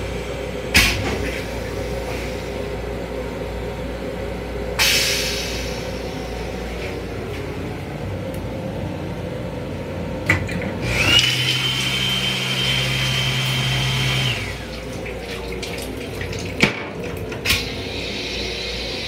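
Hand dryer in an M7 commuter railcar's restroom blowing for about three and a half seconds, a steady high whine over a low hum that cuts off suddenly, over the car's constant running rumble. A few sharp clicks and a short rushing burst that fades over about a second come before and after it.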